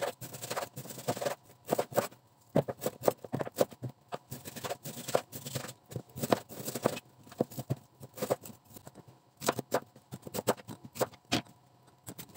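Large kitchen knife cutting partly frozen pork on a wooden cutting board: a run of irregular knocks and taps as the blade goes through the meat and strikes the board.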